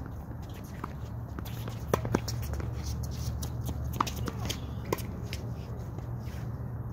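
Tennis rally on a hard court: sharp pops of the ball coming off racket strings and bouncing, the loudest two close together about two seconds in, then single pops around four and five seconds.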